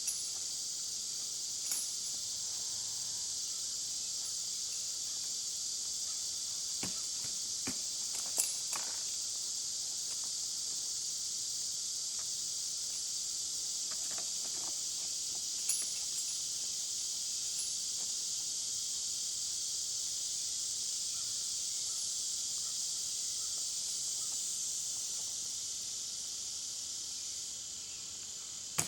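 Steady high-pitched insect chorus, a dense even buzz, with a few faint clicks and knocks scattered through it.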